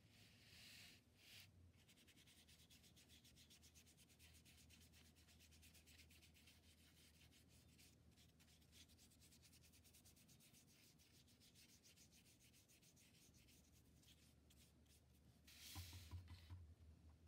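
Faint scratching of a paintbrush scrubbing paint onto paper in quick back-and-forth strokes. Near the end there is a louder scuff and thud as the paper sheet is moved by hand.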